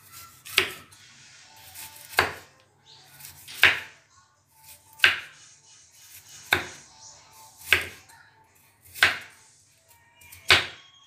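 Cleaver slicing bitter melon on a round wooden chopping board: eight single chops, evenly paced at about one every one and a half seconds, each a sharp knock of the blade through the melon onto the board.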